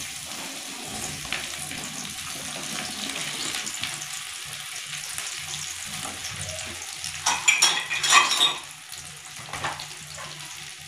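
Cut okra (bhindi) frying in hot oil in a kadhai, a steady sizzle. About seven to eight seconds in, a utensil stirs, scrapes and knocks against the pan.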